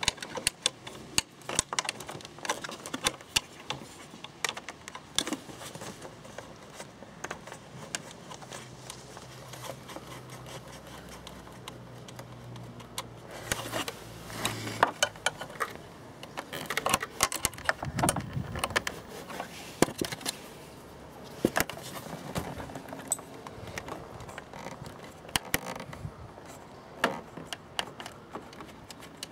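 Irregular clicks, taps and light rattles of hands working inside a motorcycle's front fairing behind the instrument cluster, handling its plastic and metal parts.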